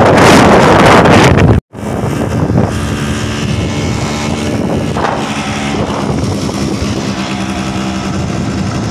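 Motorcycle engine running steadily while riding, under wind rushing over the microphone. The first second and a half is a louder rush of noise that cuts off suddenly.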